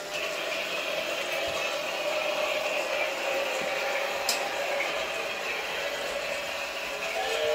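Battery-powered toy train running around its plastic track: the steady whir of its small motor and the rattle of its wheels. There is one sharp click about four seconds in, and near the end a new pitched sound joins in.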